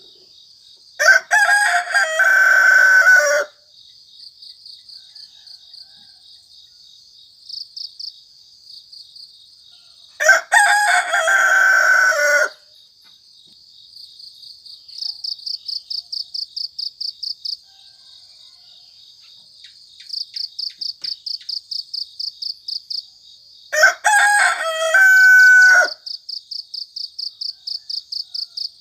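A rooster crowing cock-a-doodle-doo three times, each crow about two seconds long, over steady rapid chirping of crickets.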